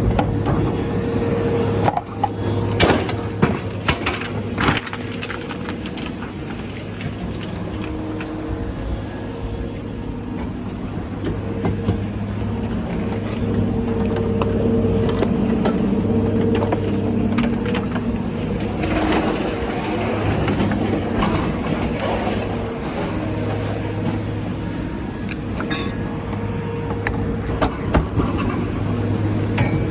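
A heavy machine's engine running steadily, with repeated metal clanks and bangs from scrap being handled, in several bursts.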